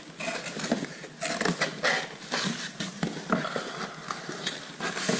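A cardboard shipping box being opened and handled, with irregular knocks, scrapes and rustling of cardboard and packing paper.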